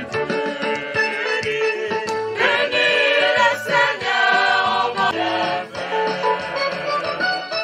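Choir of young voices singing a church hymn together, with a drum beating along.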